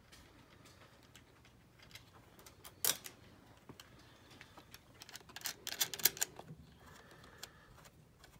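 Scattered clicks and light metallic taps as a cable's ring terminal is seated on a battery's negative post and its nut is turned down by hand. There is one sharper click about three seconds in and a quick run of clicks near six seconds.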